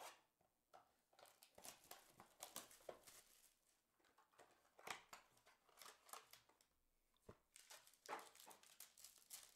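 Faint rustling, scraping and crinkling of a Panini Obsidian trading-card box and its foil-wrapped packs being handled, in many short irregular bursts, with a sharp click at the very start.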